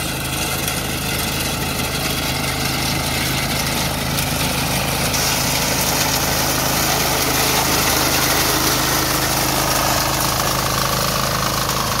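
Small engine of a walk-behind wheat reaper running steadily under load as it cuts standing wheat. A higher hiss joins about five seconds in.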